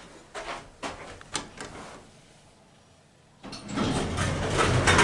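1990s Schindler M-Series traction lift: a few sharp clicks from the doors and controls, then about three and a half seconds in the car starts to travel with a steady rumble and hum.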